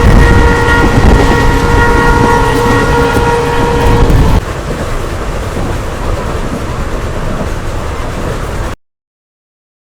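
A WDP4D diesel locomotive's horn sounds one long chord blast of about four seconds over the heavy running of its EMD two-stroke V16 engine. After the horn stops, the engine and train noise keeps going loudly until the sound cuts off abruptly near the end.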